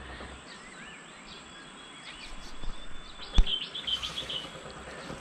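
Small birds chirping faintly over steady outdoor hiss, with a quick run of chirps past the middle. One sharp click sounds about three and a half seconds in.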